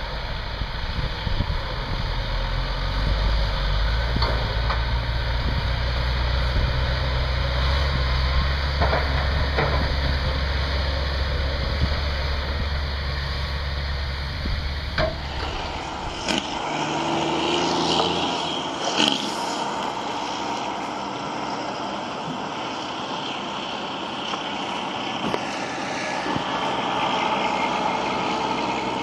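Heavy diesel engines of a Caterpillar excavator and a dump truck at work on a dirt-loading site, a steady low rumble. About halfway through, the rumble stops abruptly and gives way to a lighter dump-truck engine noise with a few brief sounds.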